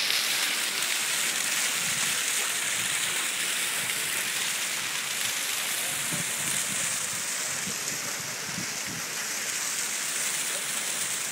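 Pavement fountain jets spraying water upward and splashing back onto the paving stones: a steady hiss of rushing, splashing water.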